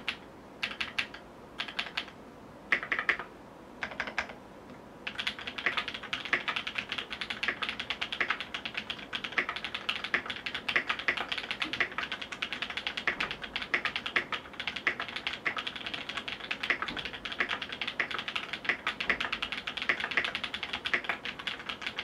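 Mechanical keyboard typing test: lubed Massdrop Holy Panda tactile switches under GMK keycaps, on an FR4 plate in a Duck Orion V3 board. A few separate short runs of keystrokes over the first five seconds, then steady fast typing.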